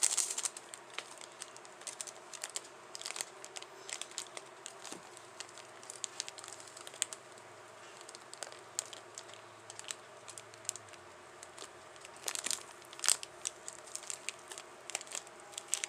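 Plastic candy-kit packaging crinkling and rustling as it is handled, in scattered small crackles. It is busiest at the very start and again about three quarters of the way through.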